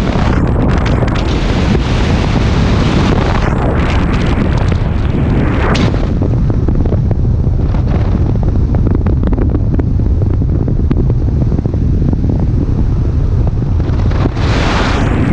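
Wind buffeting the microphone of a camera on a moving vehicle: a loud, steady low rumble, with hissing gusts in the first few seconds and again near the end.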